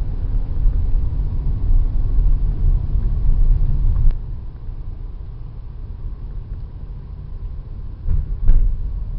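Low, uneven rumble inside the cabin of a VW T-Cross with its 1.0-litre three-cylinder turbo engine, driving slowly in automatic. There is a sharp click about four seconds in, after which the rumble is a little quieter, and two short knocks near the end.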